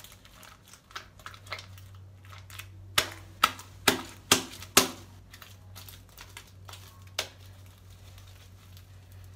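Sticky, overly soft toothpaste-and-glue slime being worked between the hands, giving a series of sharp wet smacks and clicks, five of them loudest in quick succession about 3 to 5 seconds in. A low steady hum runs underneath from about a second and a half in.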